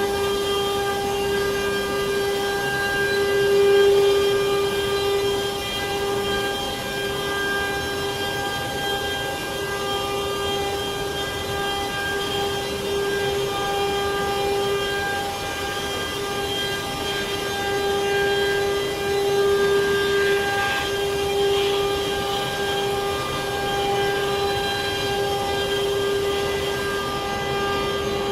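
CNC wood router's spindle running with a steady, high-pitched whine that holds through the whole stretch, over a hiss of machining noise.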